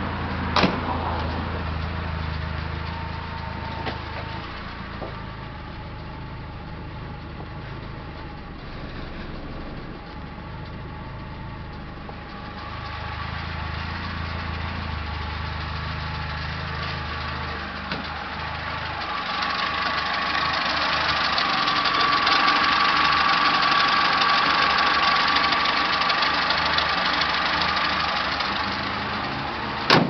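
Volkswagen Golf Mk1's 1.1-litre four-cylinder petrol engine idling steadily, with a sharp bang of a car door shutting about half a second in. Past halfway, with the bonnet up, the low engine note fades and a louder hiss with a steady whine takes over, and a sharp bang comes at the very end.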